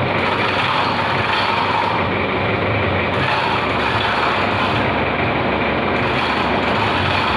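Heavy machinery running steadily and loudly, with a low engine-like hum under a dense mechanical din.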